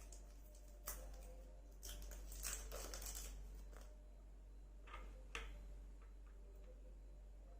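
Faint crinkling and snipping of plastic packaging being cut open with scissors: a sharp snip about a second in, a longer crinkly stretch, then two more short snips a little after halfway.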